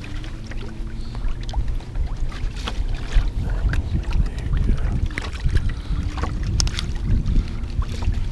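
Wind buffeting the microphone as a steady low rumble, with scattered light clicks and a faint steady hum that comes and goes.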